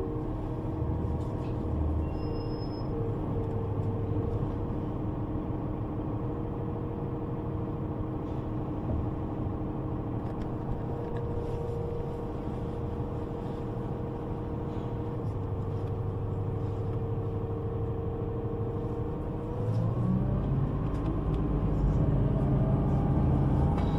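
Ride inside a bus or train: a steady rumble with a held two-note drive hum. About twenty seconds in the hum's pitch starts to rise and the rumble grows louder.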